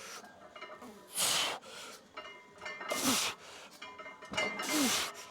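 A man's forceful exhales, each ending in a short grunt that falls in pitch, three times about two seconds apart: breathing hard as he strains through reps of a heavy leg exercise.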